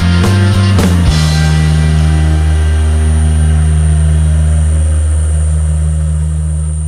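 Rock background music: a few quick drum and guitar hits, then one loud guitar chord held and ringing on.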